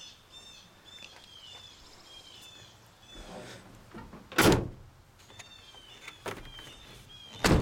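Two heavy door-like thunks about three seconds apart, the second near the end, from handling the rear of a pickup truck with a camper shell. Behind them a bird repeats short falling chirps.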